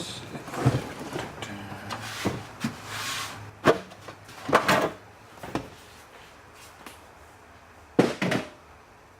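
Knocks and clatter of a custom metal grill being pulled off a desktop PC case and handled, a handful of separate bangs, the sharpest about a third of the way in and again near the end.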